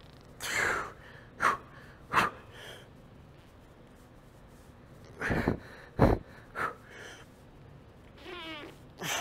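A man's forceful exhales and short strained grunts as he pushes out heavy seated dumbbell shoulder-press reps, one every second or so with a pause in the middle, and a longer wavering strained groan near the end as he grinds out the last rep.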